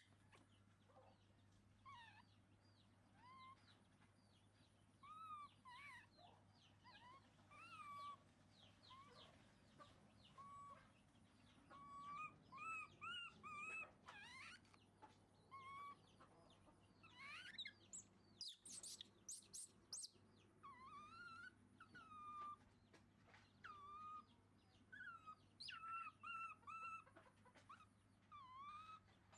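Baby macaque monkeys giving short, high, squeaky calls over and over, many of them rising and then falling in pitch, about one a second. A brief burst of rustling comes about two-thirds of the way in.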